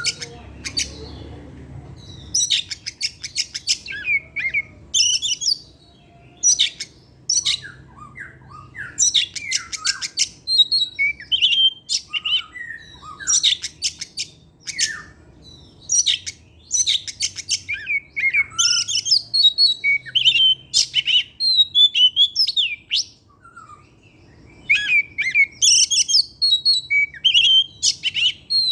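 Oriental magpie-robin (kacer) singing a long, varied song: bursts of rapid chattering notes alternating with whistled phrases, with short pauses between them. The song is full of the borrowed phrases ('materi') that kacer keepers train for.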